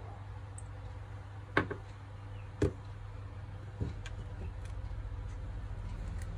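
A smartphone being set down on a wooden table: two sharp knocks about a second apart, then a softer knock and a few faint ticks, over a steady low hum.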